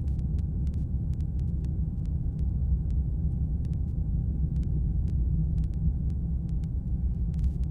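Steady low rumble of an aircraft in flight, with no change over the few seconds.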